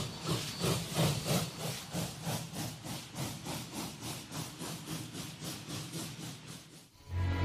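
Arena audience clapping in unison, about three claps a second, fading away near the end. Slow orchestral music begins right at the close.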